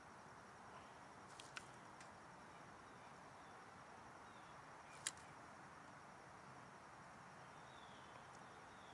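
Near silence: faint outdoor background hiss, with two soft clicks about one and a half seconds in and a sharper single click about five seconds in.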